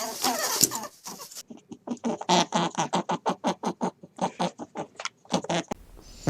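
A rabbit making a fast run of short sounds, about five a second, after a denser stretch of sound in the first second or so.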